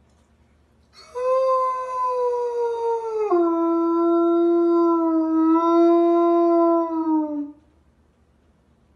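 A dog howling: one long howl that starts about a second in, steps down to a lower note partway through, holds it steadily, then tails off.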